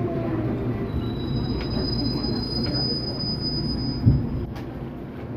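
Subway train slowing into a station, heard from inside the car: a low rumble with a faint whine falling in pitch, a thin high-pitched squeal from about a second in, and a thump about four seconds in as the train comes to a stop.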